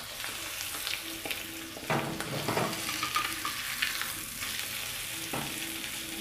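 An egg frying in butter in a small pan, sizzling steadily, with a few scrapes and taps of a spatula against the pan.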